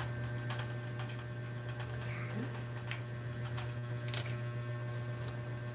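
Scattered light clicks and taps from handling the parts of a ring light's tripod stand and its small plastic fittings on a tile floor, the loudest click about four seconds in, over a steady low hum.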